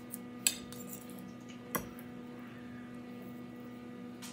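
A metal fork clinking against a plate of spaghetti: a few short, sharp clinks, the loudest about half a second in and another a little before two seconds, over a steady background hum.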